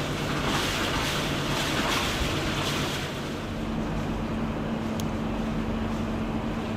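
Boat engine running steadily, a low hum under a hiss of wind and water noise. The hum changes pitch slightly about three seconds in.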